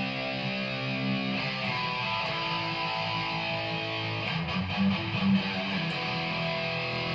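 Background music: guitar-driven track with sustained chords and a few drum hits about four and a half to five and a half seconds in.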